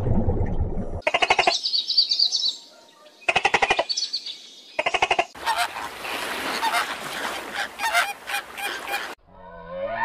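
Flamingos honking in goose-like calls: quick rattling runs of calls, then many birds calling together over a rushing background. The first second holds a low underwater rumble, and a different call with gliding tones starts near the end.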